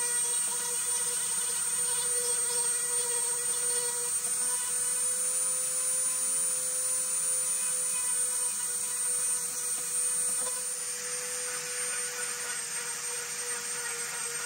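High-speed rotary carving tool on a flexible shaft running with a steady whine as its bit grinds into oak. About eleven seconds in, the sound changes and becomes hissier.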